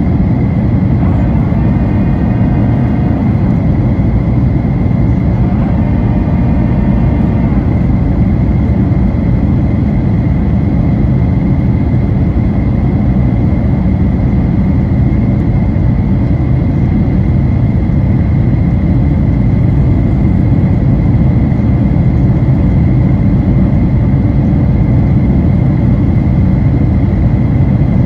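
Steady cabin noise inside a Boeing 737-900ER in flight: the dense low rumble of airflow and its CFM56-7B turbofan engines, with a thin steady whine above it.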